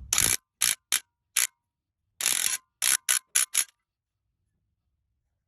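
Hand ratchet clicking in short strokes as the bolts of a replacement engine cover are run down, in about nine quick bursts that stop about three and a half seconds in.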